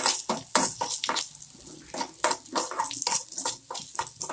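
Metal spatula scraping and stirring in a kadai of frying onions, dried red chillies and crushed garlic, with sizzling in the oil: quick, irregular strokes, several a second.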